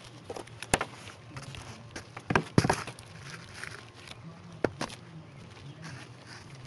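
Hammers driving roofing nails into a flat roof: several people striking at an irregular pace, with single sharp blows and a quick cluster of three around the middle.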